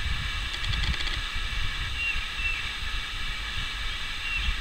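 Wind buffeting the microphone as a flickering low rumble, over a faint steady high whine. A few short, high whistled notes come and go, about four of them.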